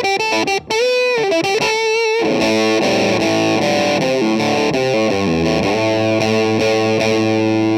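Electric guitar through a vintage-style fuzz pedal: a few short, choppy notes with a bend, then sustained fuzzed chords that ring on.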